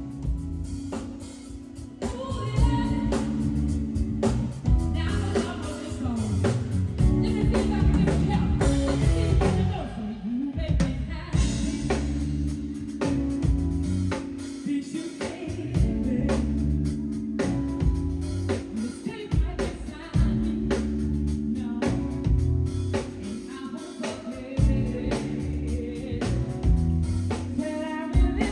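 A song with a singer over drums and bass, played with a steady beat.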